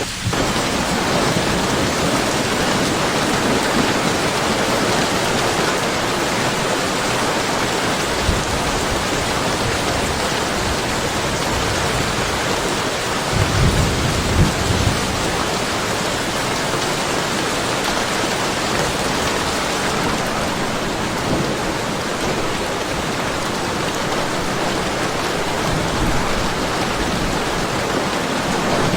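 Steady heavy rain pouring, with a low rumble of thunder about halfway through.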